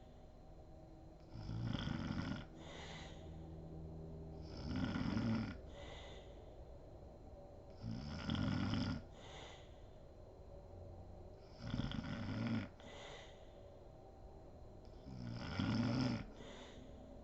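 A woman snoring in deep sleep: five loud snores about every three and a half seconds, each followed by a shorter, softer breath.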